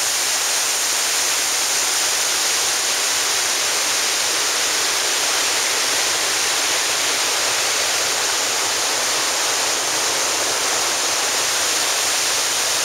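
Rensselaerville Falls' cascade rushing, a loud, steady hiss of falling water.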